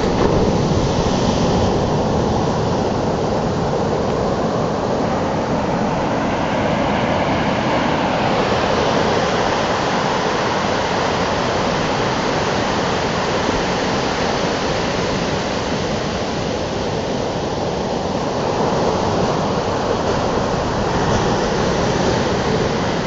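Pacific surf breaking and washing up a flat sandy beach: a steady rush of white water.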